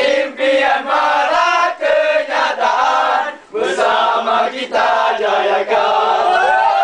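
A group of young men singing and chanting together unaccompanied, loud and rowdy, in Malay, with a short break about three and a half seconds in.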